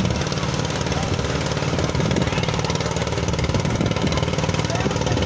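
A motor engine running steadily with a continuous low hum.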